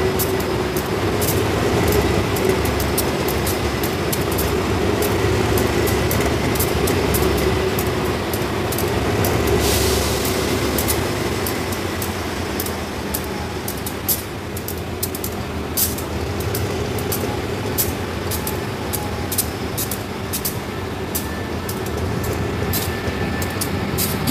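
Diesel-electric locomotive of the State Railway of Thailand drawing slowly into a station, its engine running with a steady drone and low rumble. There is a short hiss about ten seconds in.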